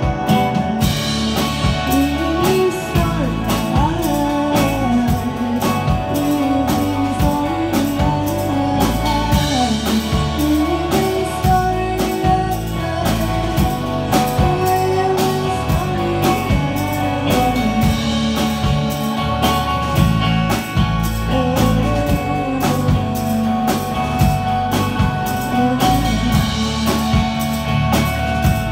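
Rock band playing live: guitar, bass guitar and drum kit at a steady beat, with singing over it.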